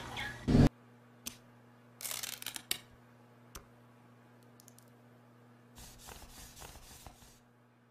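A short loud burst about half a second in, then a faint steady low hum with scattered soft clicks and crisp rustling sounds, the densest around two seconds in and again near the end.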